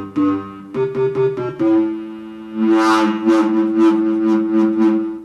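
Modal Skulpt synthesizer playing a couple of short notes, then a held two-note tone whose brightness pulses about three times a second. Heard through a compact camera's built-in microphone.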